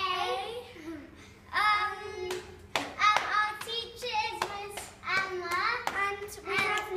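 Young children singing a song together, with several hand claps in the middle.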